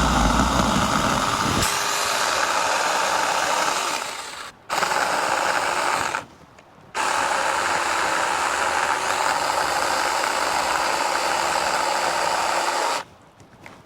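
Saker mini battery-powered chainsaw running at speed and cutting into a thick tree limb, in three runs: it cuts out briefly about four and a half seconds in, stops again for under a second past the six-second mark, and stops for good about a second before the end.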